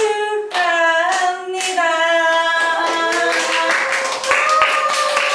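A woman singing long held notes. Several hand claps join in the second half.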